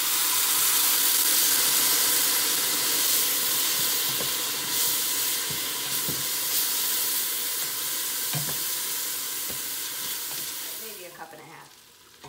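White wine hitting a hot pot of butter-toasted rice and onions, sizzling loudly as it deglazes and steams off, while a wooden spoon stirs with a few light knocks against the pot. The sizzle dies away about a second before the end.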